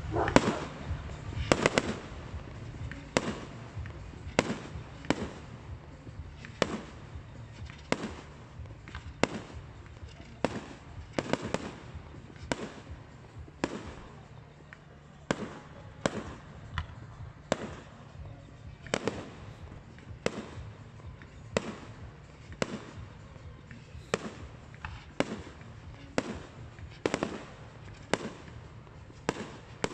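Fireworks display: aerial shells bursting in an irregular run of sharp bangs, about one or two a second, the loudest cluster near the start, over a steady low hum.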